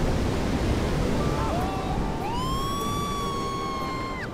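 Ocean surf with humpback whale song over it: short gliding calls about a second in, then one long held high call from about two seconds in that bends down and cuts off near the end.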